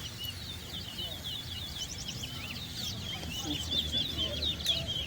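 Caged finches singing in a whistling match: a fast, continuous stream of short, high whistled chirps, getting louder near the end.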